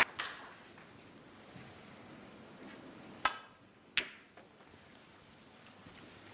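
Two sharp clicks of snooker balls about three-quarters of a second apart, a little past halfway: the cue tip striking the cue ball, then the cue ball hitting an object ball.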